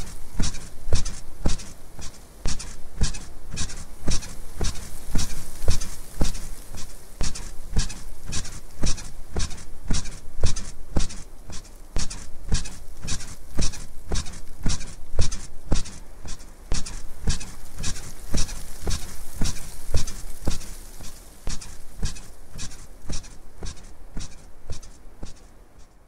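Bed squeaking in a steady rhythm, about two squeaks a second, the creak of a bed being rocked over and over.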